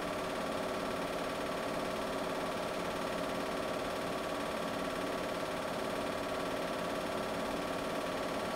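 Steady mechanical hum with several constant tones over a faint hiss, unchanging throughout.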